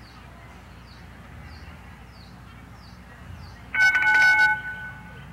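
Show-jumping start bell ringing for about a second, a little under four seconds in, with a fast metallic strike and a ring that then dies away: the signal for the rider to begin the jump-off round. Before it there is only faint outdoor arena background.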